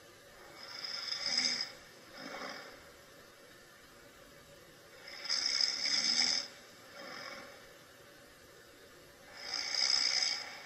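A person snoring in their sleep: three loud snores about four seconds apart, each followed by a softer, shorter breath.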